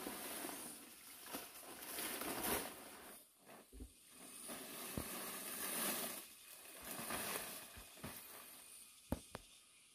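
Rustling, scraping sounds that swell and fade in waves, with a sharp click about five seconds in and two quick clicks near the end.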